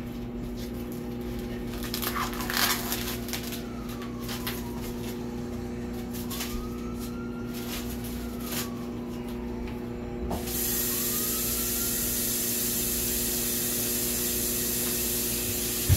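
A steady low hum throughout, with some clatter and rustling a couple of seconds in. About ten seconds in, a kitchen tap starts running water in a steady hiss.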